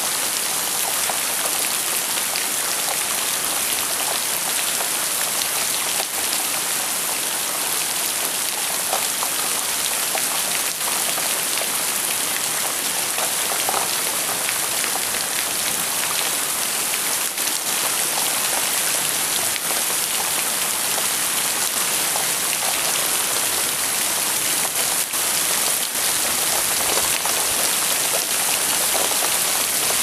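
Heavy rain falling steadily, a dense even hiss with a few distinct drop impacts standing out now and then; no thunder.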